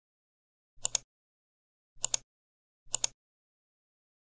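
Three short, sharp double clicks about a second apart, an editing sound effect timed to a loading bar filling up.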